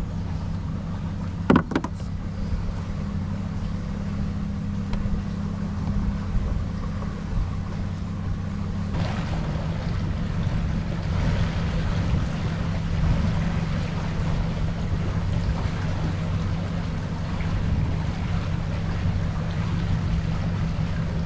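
Bass boat's outboard motor running steadily at low speed. A couple of sharp knocks about one and a half seconds in, and more water and wind hiss over the engine from about nine seconds on.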